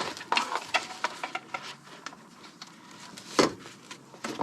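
Jump starter's jumper cables being handled: scattered clicks, rattles and rustles of the clamps and cable, with one louder click about three and a half seconds in.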